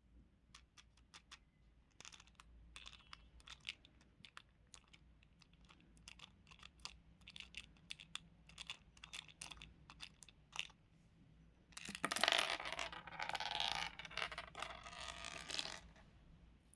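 Small craft materials handled close to the microphone: a long run of irregular sharp clicks and crackles, then about four seconds of dense, louder crunching and crackling that stops suddenly.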